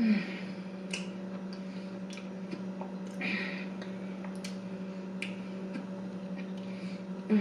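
Close-up chewing with wet mouth clicks and smacks from someone eating a chocolate-dipped cheesecake on a stick, with a louder knock at the start and another near the end, over a steady low hum.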